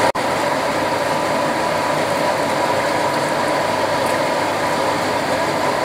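Steady rushing hiss of a pan of gulai broth heating on the stove, with a faint steady tone running through it; the sound drops out for an instant just after the start.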